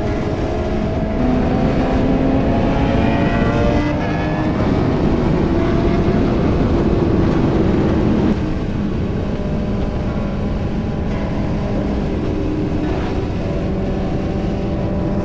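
Motorcycle engine running hard under a dense rush of wind noise, its pitch climbing as it accelerates, then falling back and holding steadier. The level drops suddenly about 8 seconds in.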